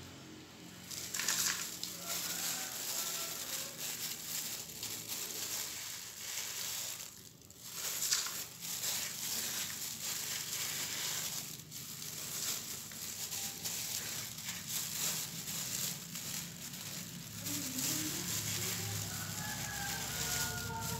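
A plastic-gloved hand scraping and raking the dry top layer of potting soil in a plant pot, a scratchy, crackly rustle mixed with the crinkle of the thin plastic glove. It pauses briefly twice, about 7 and 12 seconds in.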